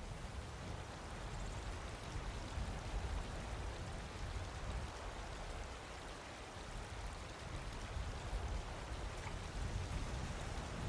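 Steady hiss of falling rain, with a low rumble underneath.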